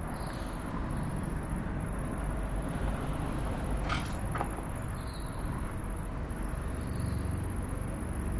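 Outdoor ambience: a steady high-pitched insect drone, briefly dropping out now and then, over a low rumble. Two sharp clicks come about four seconds in.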